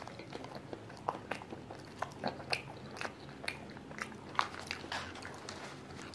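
Biting and chewing a crispy cream puff with a crackly crust: a string of sharp, irregular crunches, the loudest about four seconds in.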